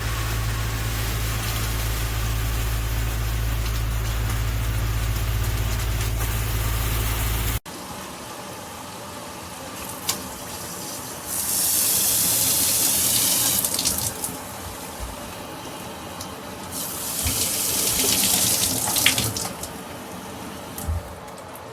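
KAIYING chrome handheld shower head spraying water: a steady rush of running water that stops abruptly, followed by two separate spells of loud hissing spray, each a few seconds long.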